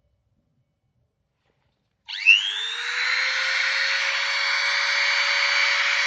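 Silence, then about two seconds in a small high-speed motor starts up: its whine rises quickly and settles into a steady high whine with a hiss over it, part of balancing a micro jet turbine's rotor.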